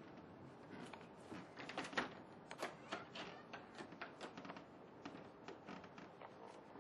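Wooden door's sliding bolt and latch being worked by hand: faint, irregular clicks and knocks, several a second, the loudest about two seconds in.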